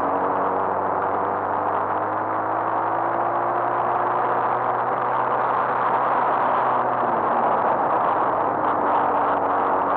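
Motorcycle engine running while riding, its pitch creeping up slowly and then shifting about seven seconds in, with steady wind and road rush over it.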